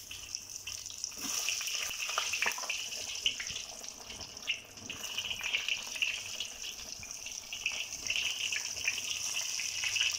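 Halved eggplant frying in hot oil: a steady sizzle with many small crackles and pops.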